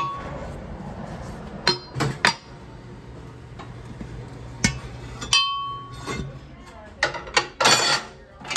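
Metal tools clanking and knocking against a wheel rim as a deflated tire is worked off it. There is a string of sharp clanks, several with a brief metallic ring, and the heaviest cluster comes near the end.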